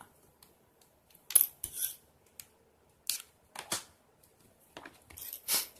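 Small plastic action-camera batteries being handled: a few scattered short clicks and scrapes, the first cluster about a second and a half in and more near the end.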